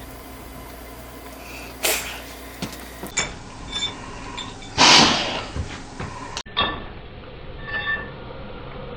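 A house cat sneezing: one sharp, noisy burst about five seconds in, with a smaller sharp burst near two seconds and a few faint clicks.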